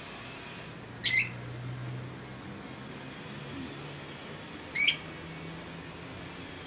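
A bird gives two short, sharp, high squawks, about four seconds apart, over a steady low hum.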